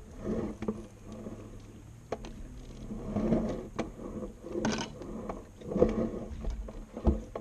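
Scattered knocks, clicks and rustling as a landing net holding a freshly caught fish is handled and set down on a boat's deck.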